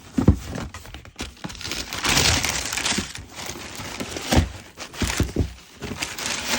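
A cardboard shoe box being opened and its packaging handled: a stretch of crinkling, rustling paper, with a few knocks and thunks of cardboard.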